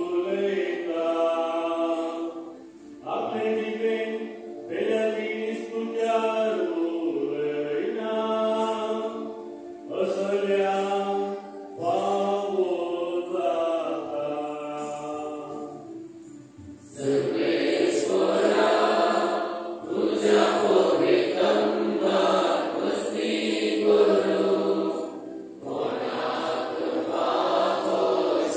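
Church choir singing a slow, chant-like liturgical hymn in phrases with short pauses between them. About halfway through, the singing becomes fuller and louder.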